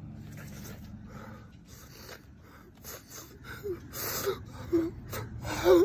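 A man sobbing: a run of short, gasping in-breaths, then brief whimpering cries, breaking into a louder wavering wail near the end.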